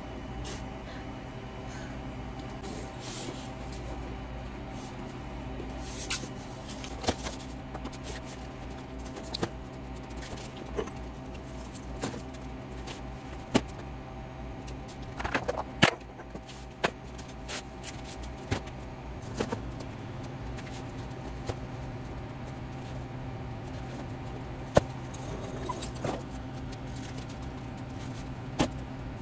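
Cardboard boxes being handled and stacked, with scattered knocks, thumps and scrapes as they are set down, over a steady machine hum from stockroom refrigeration.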